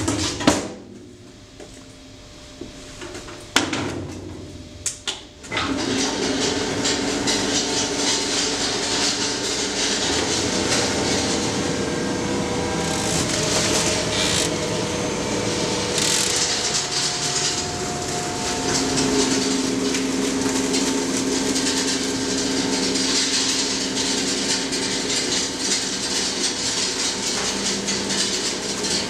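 A few metal clanks from the wheeled aluminium bin and the wire-mesh safety cage being closed. From about five seconds in, the JBF two-stage paper shredding plant runs steadily: conveyor belts carry the tipped paper and envelopes to a steel cutting roller that cross-cuts them, a dense rustle and rumble with some held machine tones.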